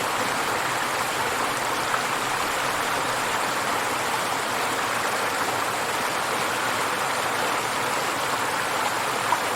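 River water flowing and splashing over rocks: a steady rushing that fades out at the very end.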